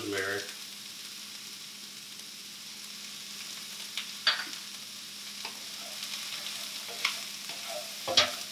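Diced sweet potatoes and onions sizzling steadily in a nonstick skillet over a gas burner. A few sharp knocks and scrapes come through the sizzle, the loudest about four seconds in, and a wooden spoon stirs the pan near the end.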